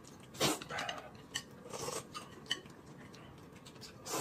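Eating at the table: noodles slurped in a few short hissing pulls, with light clicks of chopsticks and a spoon against a plate and a glass bowl.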